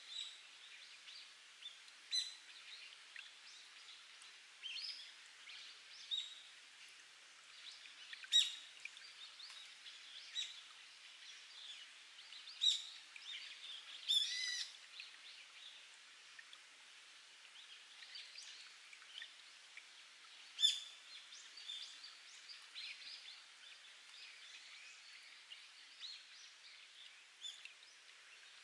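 Spring water trickling and dripping over rock in a steady soft hiss, with wild birds giving short chirps every second or two, a few of them sharp and loud.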